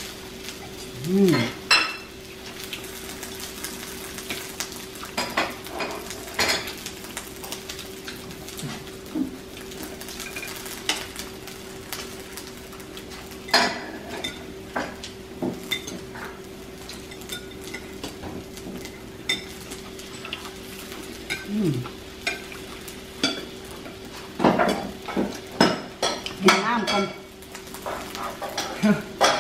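Food sizzling on a tabletop barbecue grill over a faint steady hum, with frequent short clicks and clinks of utensils against dishes and the grill, busiest near the end.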